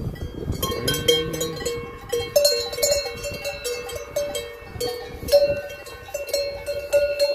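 Cowbells on grazing cattle clanking irregularly, several bells of different pitch ringing over one another.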